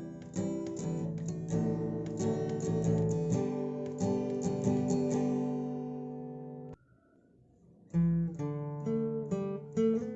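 Background music of strummed acoustic guitar, breaking off suddenly for about a second after six seconds and then starting again.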